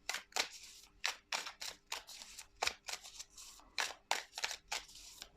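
Tarot cards being handled: a series of crisp, irregular clicks and snaps as the cards are flicked, slid and laid down, with a faint steady hum beneath.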